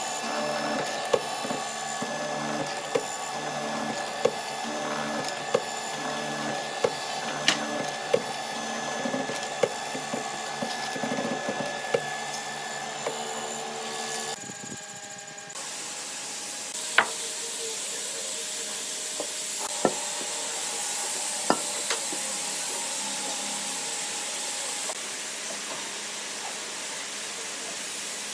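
Mortising machine running as its bit cuts a long slot in a wooden beam, with regular clicks about every two-thirds of a second. About halfway through, the sound changes to a steadier hiss with a few sharp clicks.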